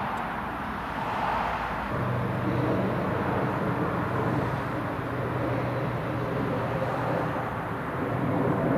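Airbus A320 on the ground with its jet engines running at idle, a steady rushing noise heard across the airfield. A steady low hum sets in about two seconds in, and the noise swells slightly near the end.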